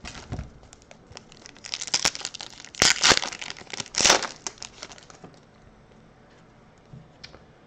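Foil wrapper of a Topps Chrome baseball card pack crinkling and tearing as it is opened by hand. It is a run of crackly rustles, loudest about three and four seconds in, then only faint handling.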